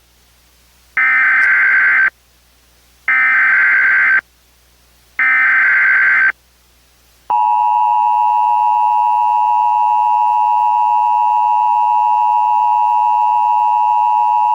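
Emergency Alert System SAME header: three bursts of warbling data tones, each about a second long with a second of silence between, carrying the coded tornado-warning alert. About seven seconds in, the steady two-tone EAS attention signal begins.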